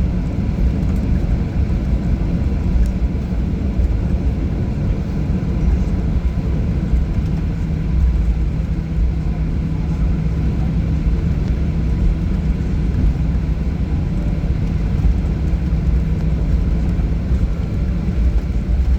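Steady low rumble inside a Boeing 737 cabin as the airliner taxis after landing, with a low hum that comes in for several seconds in the middle.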